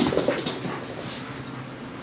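A dog whimpering briefly at the start during play, then dying away to quieter room noise.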